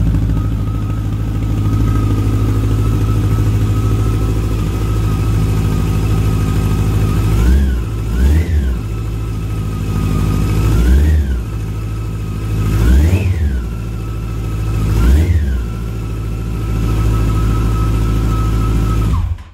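Yamaha FJR1300's inline-four engine idling on its first cold start through a home-made 4-2 dual exhaust into Delkevic tri-oval mufflers with baffles in. Five quick throttle blips in the middle rise and fall in pitch. The sound cuts off suddenly near the end.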